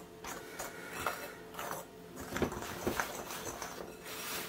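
Metal teaspoon stirring dry flour mixture in a glass mixing bowl, giving soft scrapes and a few light ticks of spoon against glass.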